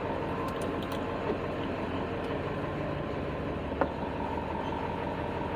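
Truck engine idling steadily, with one short click a little before four seconds in.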